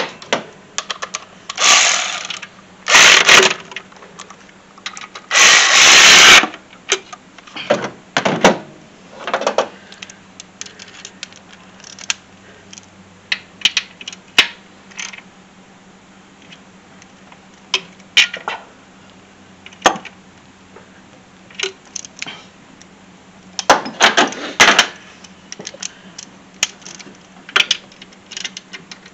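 Ratcheting wrench clicking in short, irregular runs as bolts are turned on a car engine, with metal tool clinks and a few louder bursts of clatter.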